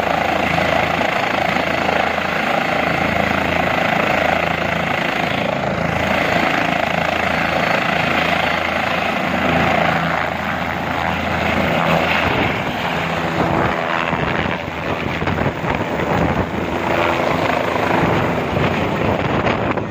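Light helicopter running on the pad with its rotor turning, then lifting off and climbing away overhead in the second half, its rotor beat growing uneven as it goes.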